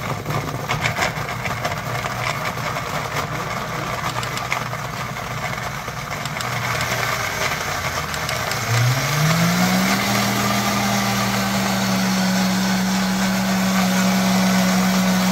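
Countertop blender running, grinding onion into a chile sauce, with a few knocks in the first second or two. About nine seconds in, its motor speeds up with a rising whine and then holds a steady, higher pitch.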